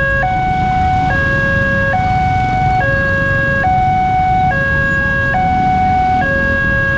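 Railway level-crossing electronic warning alarm sounding a steady two-tone alternation, each tone lasting just under a second, still going as the barrier lifts to reopen the road. Motorcycle engines rumble underneath.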